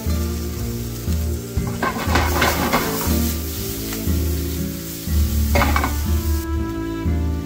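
Shrimp sizzling in a nonstick skillet over a gas flame, with two louder bursts of sizzling and stirring as the pan is tossed, one about two seconds in and a shorter one past five seconds, under background music.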